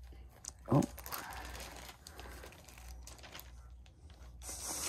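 Plastic bag and parchment paper crinkling and rustling as hands press and roll a sushi roll tight. A short voiced hum from a person sounds about a second in, and a louder rustle comes near the end.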